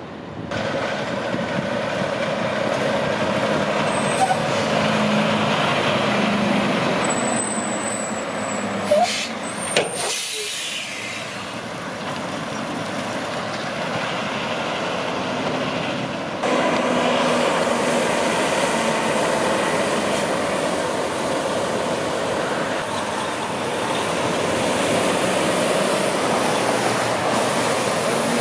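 Diesel semi trucks running and passing at close range, with short sharp air-brake hisses around nine to ten seconds in. The sound changes abruptly a few times as one truck's run gives way to another's.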